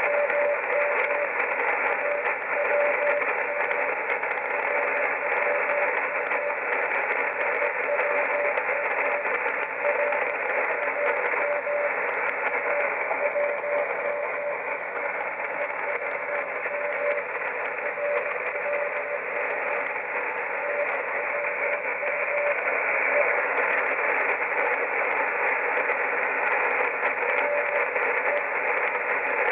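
Shortwave radio reception of the RWM time-signal station on 9996 kHz: steady hiss and static through a narrow receiver passband, with a faint tone keyed on and off beneath it, the station's Morse code call sign.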